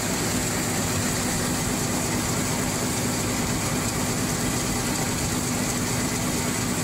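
International 1150 grinder-mixer running steadily, its unloading auger pouring ground mixed feed out of the spout, over a steady engine hum.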